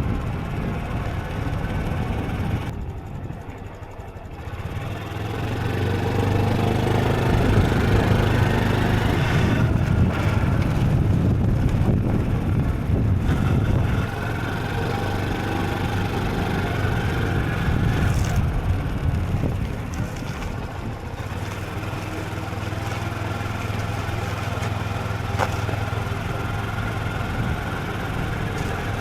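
Honda CT125 Hunter Cub's single-cylinder engine running steadily under way. It quietens briefly a few seconds in, then runs louder.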